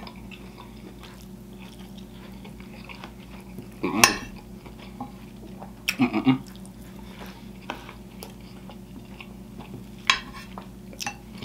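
A metal fork scraping and clinking against a plate, with close-up chewing in between. The sharpest clink comes about four seconds in, with a few more around six seconds and near the end, over a steady low hum.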